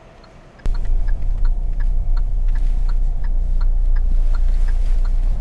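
Kia Seltos turn-signal indicator ticking steadily, about three ticks a second, over a loud low rumble inside the car's cabin that starts suddenly about half a second in.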